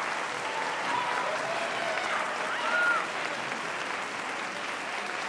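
Audience applauding, with a few voices calling out over the clapping. It eases slightly after about three seconds.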